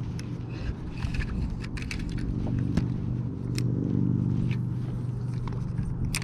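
A boat's motor running steadily, swelling louder about three to four seconds in and easing off again, with scattered light clicks and knocks of gear handling.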